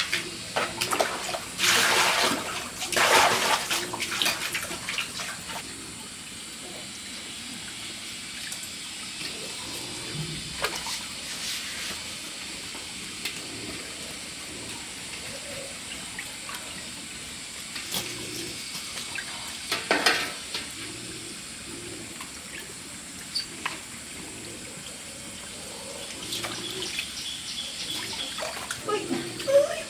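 Stream water flowing steadily, with a few splashes: the loudest about two to four seconds in and again about twenty seconds in.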